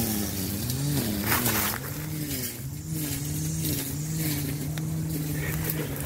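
A motor vehicle engine running, its pitch wavering for the first few seconds and then holding steady.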